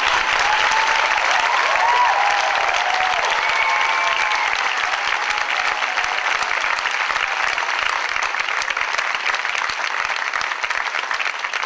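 Theatre audience applauding, with a few voices calling out in the first few seconds; the clapping eases off a little toward the end.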